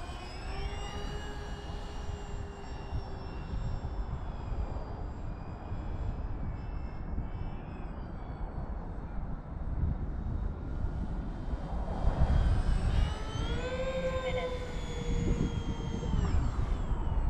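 Twin electric motors and propellers of an RC Avios Grumman HU-16 Albatross flying boat humming in flight. The pitch bends as the plane passes, and it is loudest about twelve seconds in, over a steady low rumble.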